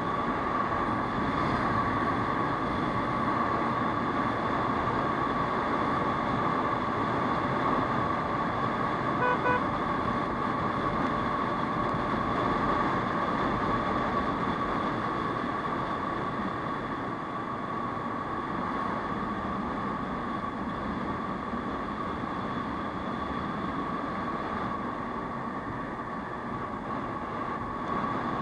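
Aprilia SR 150 scooter riding at cruising speed on a highway: a steady drone of engine, wind and road noise with a constant high hum. About nine seconds in, a horn beeps twice briefly.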